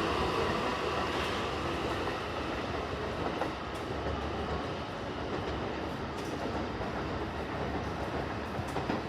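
Keikyu Line train running through the station, a steady rumble with wheels clicking over rail joints a few times, slowly fading.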